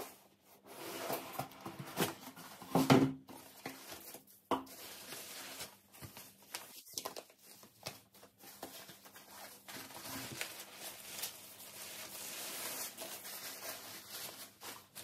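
A cardboard shipping box being opened by hand: tearing and scraping of the cardboard and tape, loudest about two to three seconds in, then a steady rustle of shredded paper strips, foam sheets and paper wrapping being pulled aside.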